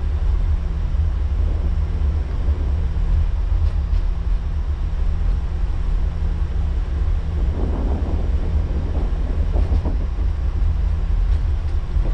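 Cockpit noise of an Airbus A340 taxiing with its engines at idle: a steady low rumble with a constant hum.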